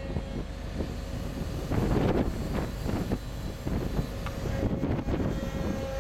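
Wind gusting across the microphone over the low rumble of a ship's deck machinery, with a faint steady whine underneath.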